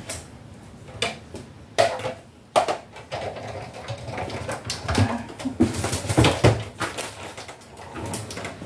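Paper and thin metal cutting dies being handled: scattered clicks, taps and paper rustles, with a cluster of sharper knocks about five to six and a half seconds in.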